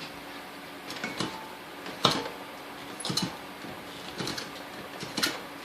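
A series of sharp clicks and light knocks, about one a second, the loudest about two seconds in, from handling the coffee grinder; the motor is not running.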